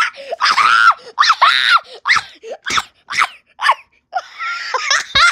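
A child shrieking and squealing in a run of short high-pitched cries, with one longer cry about a second in.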